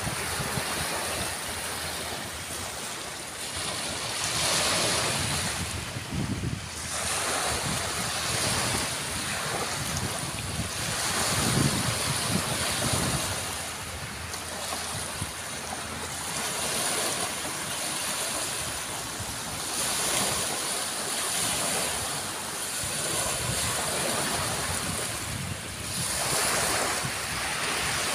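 Small waves breaking and washing up onto a sandy beach, the surf swelling and easing every few seconds.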